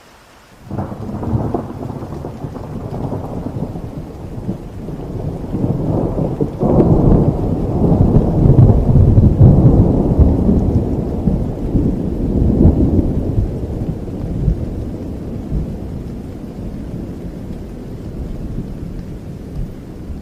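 Thunder over heavy rain. A sudden crack comes about a second in, then a long, deep rumble swells to its loudest midway and slowly dies away.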